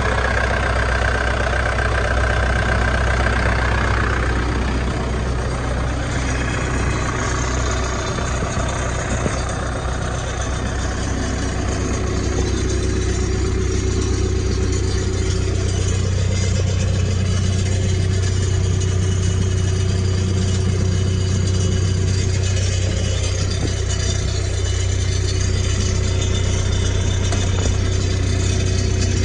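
New Holland 555E backhoe loader's diesel engine running steadily at idle, with a higher whine over the first few seconds.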